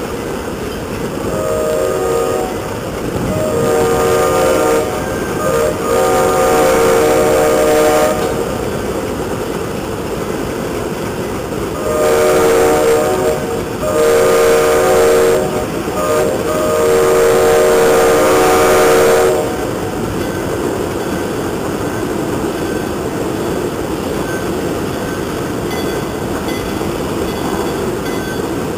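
Locomotive air horn sounding several notes at once in two groups of blasts: three blasts over the first eight seconds, then a second group from about twelve seconds, ending in a long blast that stops near twenty seconds. Between and after the blasts, the steady rumble of a passing consist of Alco diesel locomotives.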